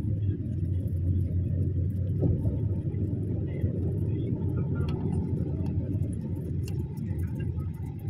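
Steady low road and engine rumble of a car moving at speed, heard from inside the cabin.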